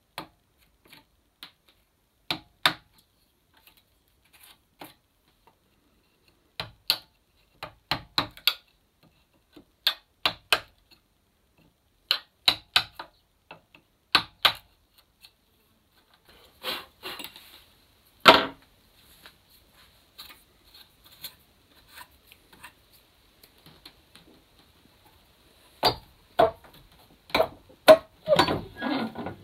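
Mallet tapping a wood chisel into a small wooden carving: sharp knocks in groups of two or three with pauses between them, a brief scraping cut and one loud strike in the middle, then a quicker run of taps near the end.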